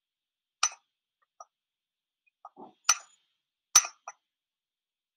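A few short, sharp clicks at uneven intervals, the two loudest about three seconds and almost four seconds in, with a brief soft lower sound just before the first of those.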